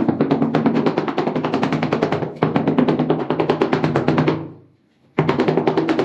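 Music with fast, even drumming over steady low tones. It fades out about four seconds in, stops briefly, then starts again abruptly.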